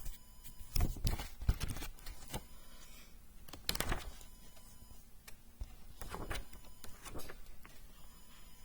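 Handling noise from old books and papers: a few soft knocks and short rustles at irregular moments as they are picked up, leafed through and set down, the loudest about four seconds in.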